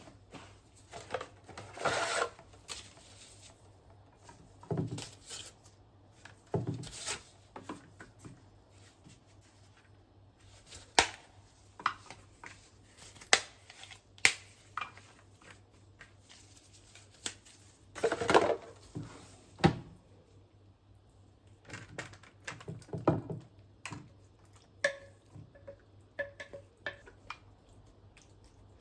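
Household handling sounds: scattered sharp clicks and light knocks of objects being set down, with short rustling and rubbing bursts in between.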